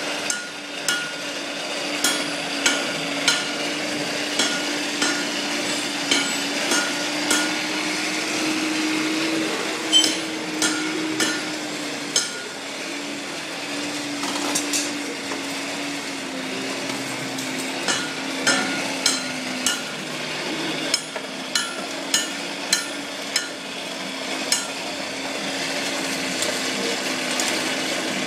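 Hand hammers striking hot iron on an anvil, ringing blows in runs of about one and a half to two a second, broken by pauses. Under them runs a steady hum with a rushing noise, fitting the coal forge's air blast.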